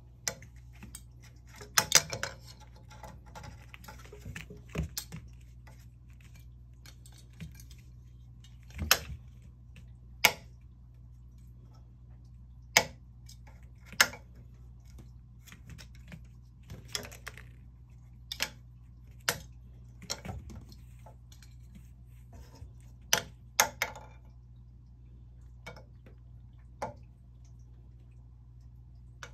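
A kitten batting a small plastic toy about among wooden table legs on a wooden floor: scattered sharp clicks and knocks at irregular intervals, over a steady low hum.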